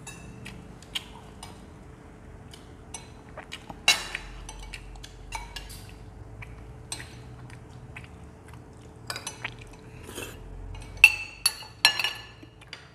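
Metal spoons clinking against ceramic plates and bowls while eating, in scattered taps, loudest about four seconds in and a few times near the end.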